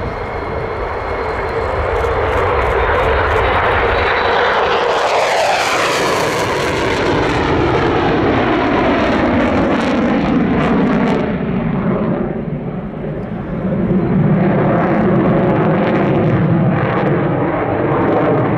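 F-16 fighter jet's engine running at high power: a loud, continuous jet rush. About five seconds in it sweeps past with a falling pitch, and it dips briefly around twelve seconds before swelling back up.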